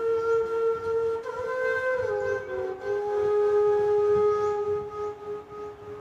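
A flute playing a slow melody of long held notes, moving between a few pitches with a short run of note changes between about one and three seconds in.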